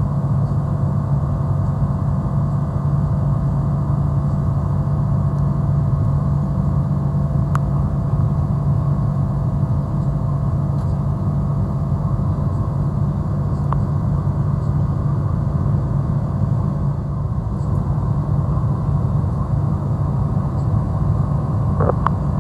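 Steady cabin drone of a Boeing 777-200ER climbing out, heard from a window seat over the engine: jet engine and airflow noise with a deep even hum and a faint steady whine. A few faint clicks come near the end.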